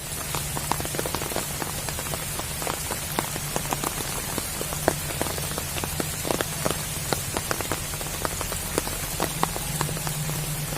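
Steady rain falling on water, a constant hiss with many separate drops plinking throughout, over a low steady hum.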